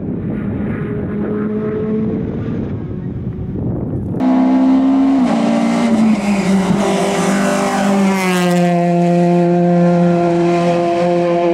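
Rally car engine, at first muffled and faint under a noisy rush. About four seconds in it turns loud and close: the engine runs at high revs, drops in pitch once about a second later as the driver lifts for the bend, then holds a steady, high-revving note through the corner.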